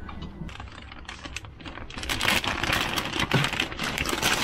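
A few light clicks, then from about two seconds in a clear plastic bag rustling and crinkling close by.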